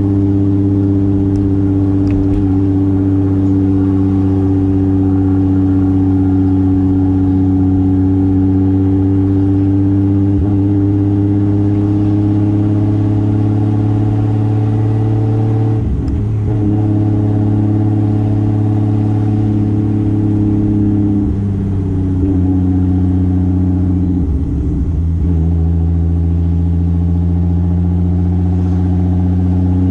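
Single-turbo 2JZ straight-six in a 1995 Toyota Soarer running under way, a steady engine drone that slowly rises in pitch. About halfway through it breaks off and resettles at a new pitch, as it does in a gear change, and it dips and changes again twice more a few seconds later.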